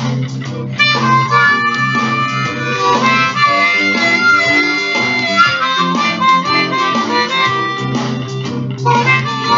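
Diatonic harmonica in C playing an improvised blues, coming in strongly about a second in with long held notes, over a blues guitar backing track with a steady bass.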